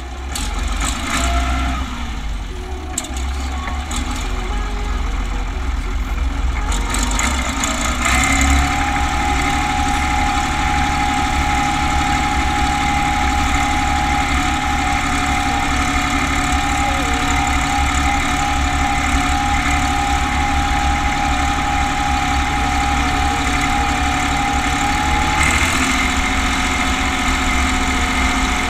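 Renault 120.14 tractor's diesel engine, heard close to its upright exhaust stack. It runs at low revs at first, then speeds up about eight seconds in and holds a steady speed with a steady whine on top, and the note shifts again near the end.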